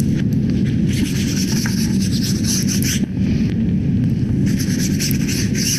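Paintbrush bristles scrubbing back and forth across cotton fabric in quick strokes, in two runs: about a second in, and again near the end. A steady low rumble runs underneath.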